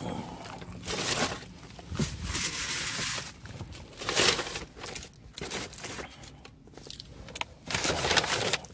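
Brown paper takeout bag rustling and crinkling as a hand rummages through it, in irregular bursts.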